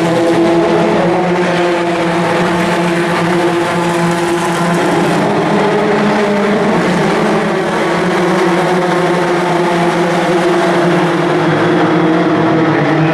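Historic Formula 3 single-seater race cars running at speed, a loud steady engine drone whose pitch shifts only slightly.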